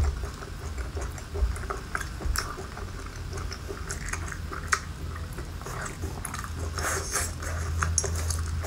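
Close-up wet eating sounds of a person tearing and chewing a whole cooked octopus: sticky chewing and sucking with scattered clicks and smacks.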